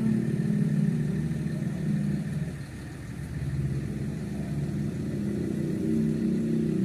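A large tour bus's diesel engine idling steadily, its level dipping briefly a few seconds in.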